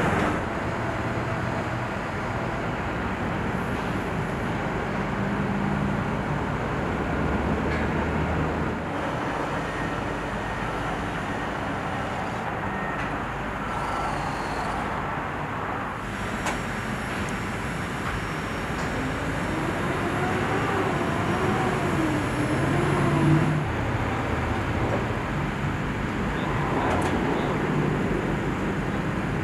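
Steady road-traffic noise: the hum of passing motor vehicles with engine tones that rise and fall.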